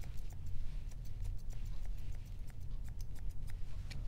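Straight grooming shears snipping fine puppy hair, a run of short, sharp cuts at an irregular pace of a few a second, over a low steady rumble.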